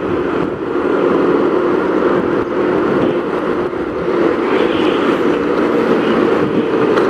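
Motorcycle engine running steadily while riding at an even speed, with a constant rush of road noise.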